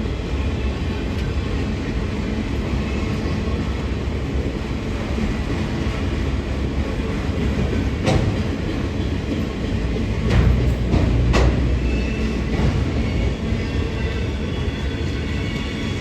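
Train moving along the track with a steady low rumble, and a few sharp metallic knocks about halfway through as the couplers between the cars take up slack.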